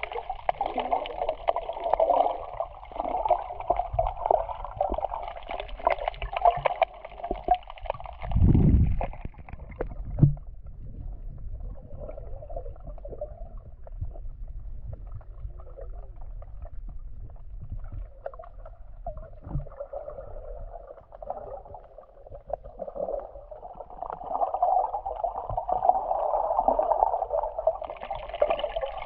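Muffled sloshing and gurgling of seawater heard through a submerged camera, with one heavy low thump about eight and a half seconds in; the wash drops down in the middle and grows louder again near the end.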